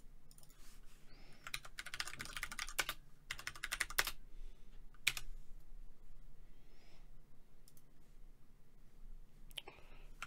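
Typing on a computer keyboard in two quick runs of keystrokes, followed by a single sharper click about five seconds in and a few faint clicks later on.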